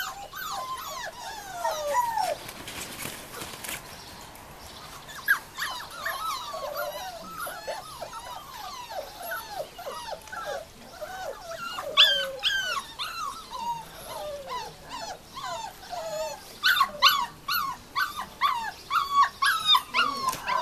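A litter of 34-day-old Entlebucher Mountain Dog puppies whining and yipping, many short falling whines overlapping one another. There is a lull a few seconds in, and a denser, louder run of whines near the end.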